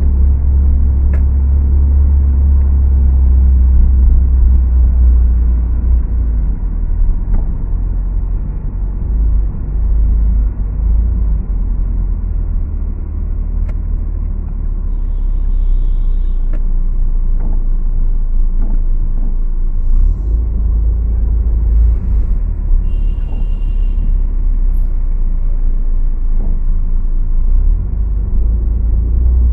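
A car driving through slow city traffic, with a steady heavy low rumble of engine and road noise that eases for a while in the middle.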